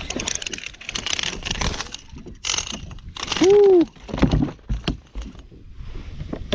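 A hooked speckled trout being fought to the kayak: the fish splashing at the surface while the spinning rod and reel are worked, with scattered clicks and knocks from handling. Just past the middle comes a loud brief rush of noise with a short tone that rises and falls.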